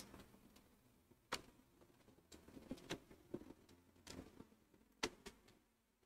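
Light, scattered clicks and knocks of a Dell Inspiron 3493 laptop battery pack being handled and seated into the open laptop chassis. The sharpest clicks come right at the start and about five seconds in.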